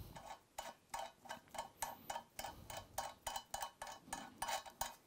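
Back nut being spun by hand onto a mixer tap's threaded shank: a quick run of light clicks, about four or five a second.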